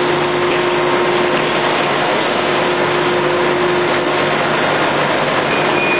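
Steady machine drone of an automated solar panel framing line on the factory floor: even noise with a low hum and a held tone that drops out about four seconds in.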